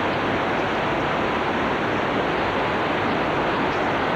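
Hurricane Katrina's winds blowing hard: a dense, steady rushing noise that does not let up.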